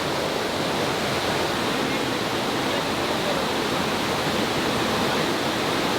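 Waterfall and its stream rushing steadily, an even, unbroken sound of falling water.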